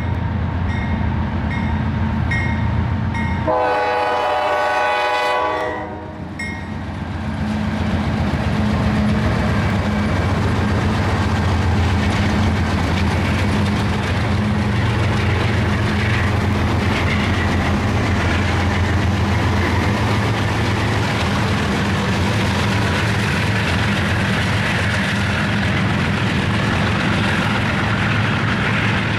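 Norfolk Southern freight train passing close by. The lead diesel locomotive's bell pings steadily in the first few seconds, then its horn sounds one chord-like blast of about two and a half seconds. After that the diesel engines run loud as the locomotives go past, followed by the freight cars rolling by.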